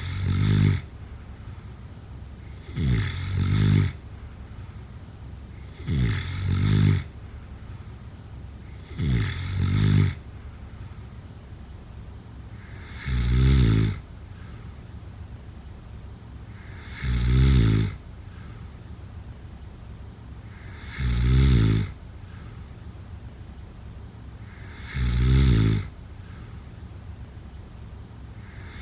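A sleeping person snoring in a steady rhythm, about eight snores in all. The first few come about every three seconds, each with a short falling sound just before it. Later the snores slow to about one every four seconds.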